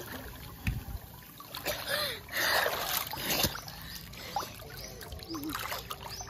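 Pool water splashing as a child swims freestyle strokes, loudest from about two to three and a half seconds in.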